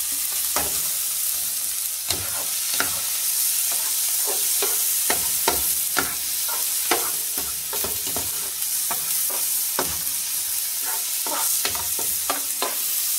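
Diced cuttlefish, onion, pepper and tomato sizzling in oil in a paella pan, with a perforated metal skimmer scraping and tapping the pan as it stirs, in irregular strokes every half second or so.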